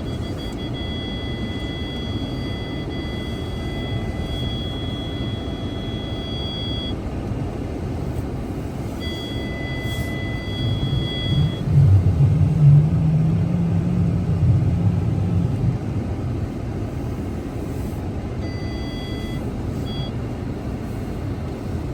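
Car driving: a steady low rumble of engine and road noise that grows louder for a few seconds near the middle. A faint, high, steady tone starts and stops three times.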